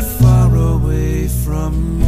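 Music from a slow Christian worship song: an instrumental break between the chorus and the next verse, with a melody line over a steady low bass.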